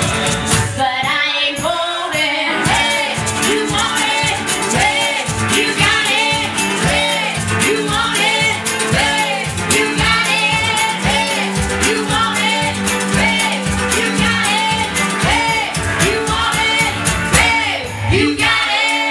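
Live skiffle-style country band with a woman singing lead over a steady, driving beat.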